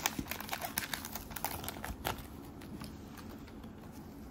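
Light clicks and rustles of trading cards being slid out of a torn foil booster pack, busiest in the first two seconds, then faint handling noise.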